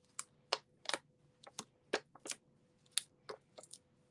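Faint, irregular small clicks and ticks, about a dozen in four seconds: foam adhesive dimensionals being picked off their plastic backing sheet with the fingers and pressed onto cardstock.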